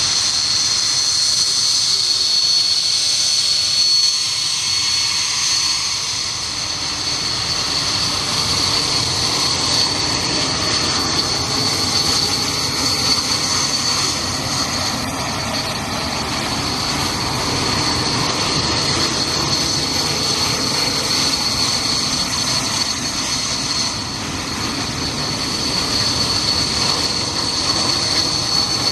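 Several Mitsubishi T-2 jet trainers taxiing at close range. Their twin Adour turbofan engines give a steady, high-pitched whine over a rushing roar.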